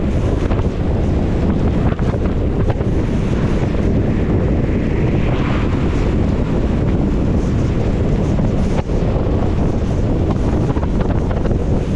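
Car driving on a rain-soaked road: a steady low rumble of tyres and wind noise, with many small ticks of rain. A brief hiss swells and fades about five seconds in.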